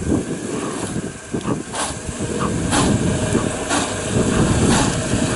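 Engine of a beached Fiat Panda 4x4 running under load as it is driven and pushed in deep mud, with its wheels spinning. A rush of noise comes about once a second over a steady low rumble.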